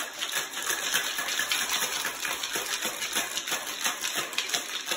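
Ice rattling and knocking inside a cocktail shaker, shaken hard in a fast, steady rhythm to chill the drink.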